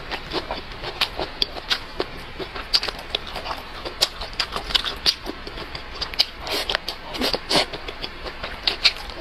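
Close-miked chewing and mouth smacking as a person eats, a steady run of irregular wet clicks several times a second, busiest about two-thirds of the way through.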